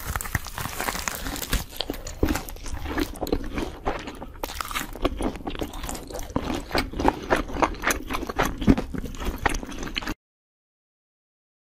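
A person eating: chewing and biting food, with a fast, irregular run of sharp crunches that cuts off suddenly about ten seconds in.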